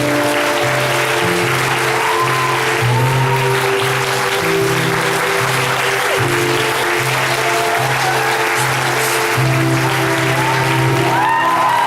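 Theatre audience applauding steadily over loud curtain-call music with a held, stepping bass line and melody.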